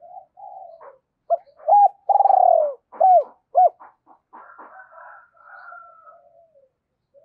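Spotted dove cooing: a run of short coos, with one longer coo falling in pitch about two seconds in, then fainter, softer calls trailing off.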